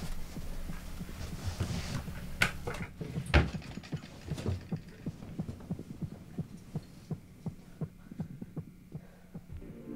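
Low, steady hum under a fast pulse of soft thumps, about three a second, fading toward the end, with two louder knocks in the first few seconds.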